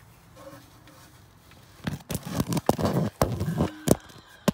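Handling noise from the recording phone as it slips out of place and falls: about two seconds of loud, irregular knocking and scraping starting about two seconds in, then one sharp knock near the end.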